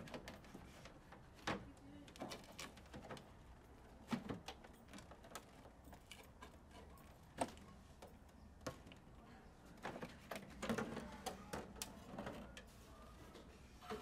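Scattered light clicks and knocks from a portable air conditioner's plastic back panel and fasteners being handled as the cover is unfastened and lifted off, with a denser run of knocks and rattles about ten seconds in.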